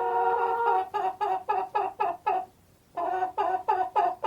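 An animal call with a held note, then two runs of quick repeated notes, about four a second, with a short break between the runs.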